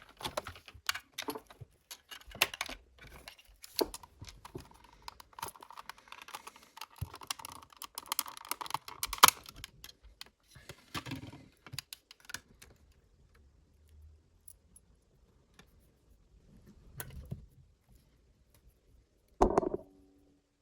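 Small clicks and taps of hand tools and the plastic and metal parts of a cassette player being handled during repair, frequent at first and thinning out after about twelve seconds, with one louder clatter near the end.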